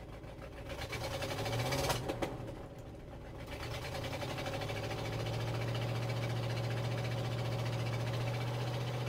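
The 360 cubic-inch FE V8 of a 1968 Ford F350 running on choke just after its first start in years: it surges about two seconds in, sags, then settles into a steady, even fast run from about four seconds in.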